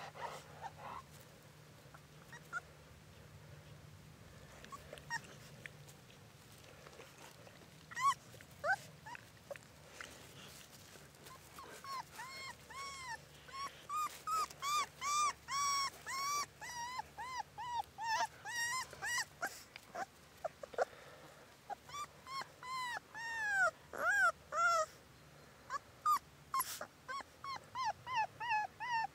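Cane Corso puppy whimpering: short, high, arching cries, a few scattered at first, then coming in a quick, steady run through the second half.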